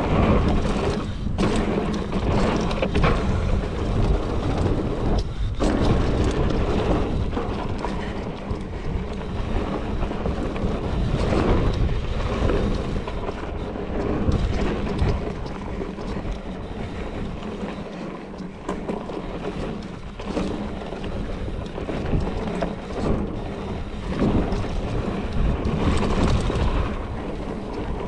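Mountain bike riding down a dirt trail: wind rushing over the camera microphone, tyres rolling on dirt and gravel, and frequent short rattles and knocks from the bike over bumps.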